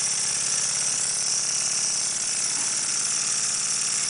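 Stuart 10V single-cylinder vertical model steam engine running fast and smoothly on compressed air: rapid, even exhaust beats over a steady hiss of air.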